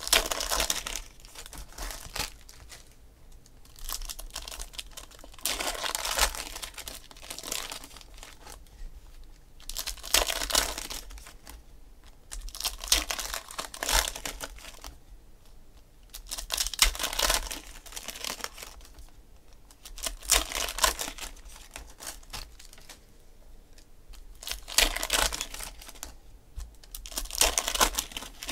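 Foil trading-card packs being torn open and crinkled by hand, in repeated bursts of rustling every few seconds with short quieter gaps between.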